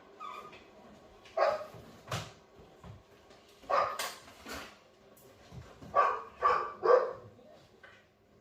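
A dog barking: two single barks a couple of seconds apart, then three quick barks near the end.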